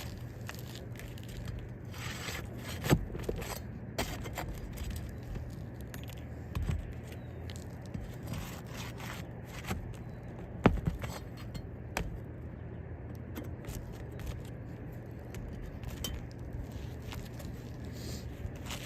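Roof shingles being worked loose by hand with a tool, breaking their seals and prying at staples: intermittent scraping and small clicks, with two sharper knocks about 3 seconds and 11 seconds in.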